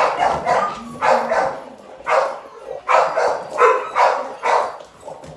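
A dog barking repeatedly, about seven barks in quick succession, one to two a second.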